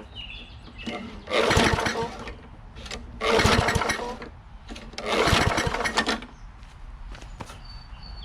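Three pulls on the recoil starter of a Tecumseh 6.5 hp lawn mower engine, each about a second long. The engine turns over but does not catch, which the owner puts down to an empty fuel tank.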